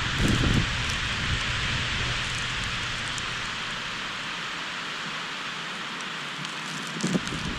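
Wind in a heavy snowstorm, heard as a steady hiss, with gusts buffeting the GoPro HERO5 Black's microphone in low rumbles about half a second in and again near the end.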